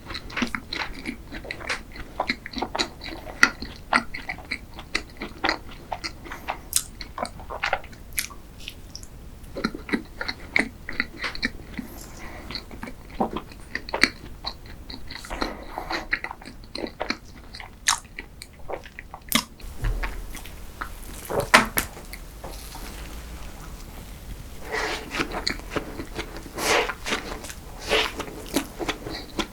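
Close-miked eating of cream desserts: chewing and biting, with many sharp clicks throughout. The mouth sounds come thicker from about 25 seconds in to the end.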